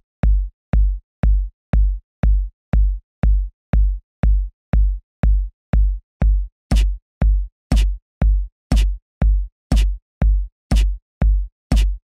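Electronic drum-machine beat: a deep kick thumping steadily about twice a second, joined a little past halfway by a crisp snare-like hit once a second.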